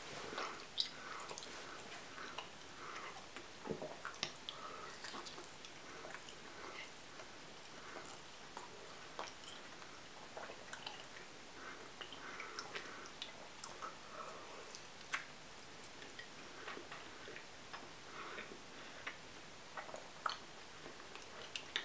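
A person chewing a large lump of raw marzipan: faint, irregular wet mouth sounds with scattered small clicks and smacks.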